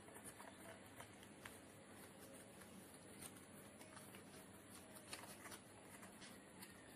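Faint rustling and crinkling of a small sheet of origami paper being folded and creased by hand, with scattered small irregular ticks over a steady hiss.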